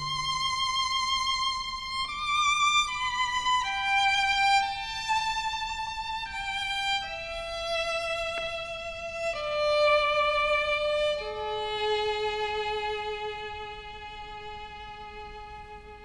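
Solo violin playing a slow melody with vibrato, its notes stepping mostly downward, ending on a long held lower note that slowly fades.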